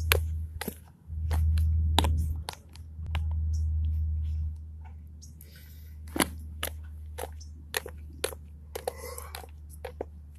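Irregular sharp clicks and crackles close to the microphone, with a couple of short rustles. Under them a low rumble that is heavy for the first four and a half seconds and then eases off.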